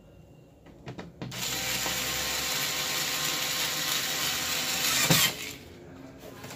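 Cordless electric screwdriver motor running steadily for about four seconds, driving a screw into the TV's replacement power supply board. It starts about a second in after a couple of light clicks and stops with a click near the end.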